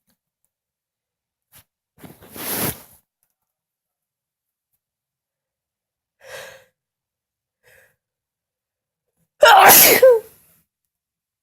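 A person sneezing twice: a smaller sneeze about two seconds in, then a much louder, forceful sneeze near the end, with a short breath between.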